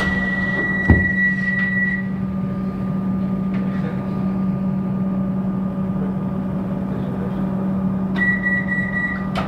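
Running noise of a Melbourne Metro electric suburban train carriage in motion, heard from inside the carriage: a steady hum with a thin high whine that sounds for the first two seconds and again near the end. A single short knock about a second in.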